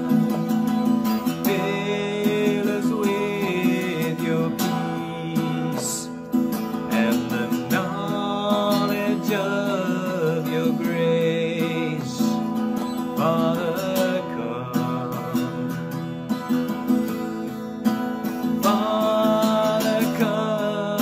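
Music: a man sings a slow worship song, accompanying himself by strumming chords on a cutaway acoustic guitar.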